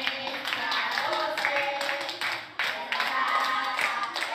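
A group of children singing together and clapping in time.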